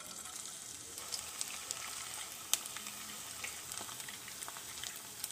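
Small balls of cornflour-coated minced mutton (keema) sizzling as they fry in hot oil, a steady hiss with scattered pops and crackles.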